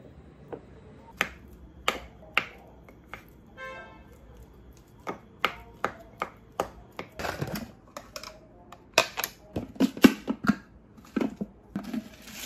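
A wooden spoon knocking and scraping against a wooden bowl as a peeled banana is mashed in it: irregular sharp taps, sparse at first and coming thick and fast in the second half.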